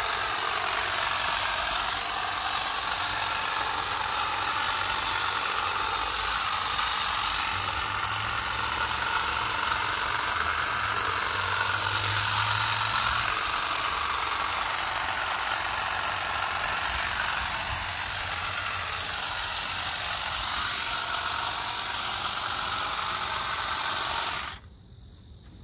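Saker cordless grass shear running steadily, its cutting blades clipping grass along the lawn edge. It cuts off suddenly near the end.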